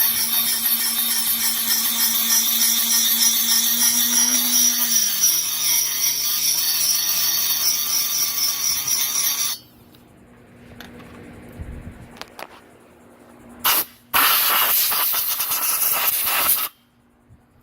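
Multi-speed Dremel rotary tool with a carbide cutter grinding out a chainsaw cylinder's port, a steady motor hum under a high hiss. About five seconds in the hum drops to a lower pitch. The tool stops near ten seconds, gives a short burst, then runs again for a couple of seconds and stops.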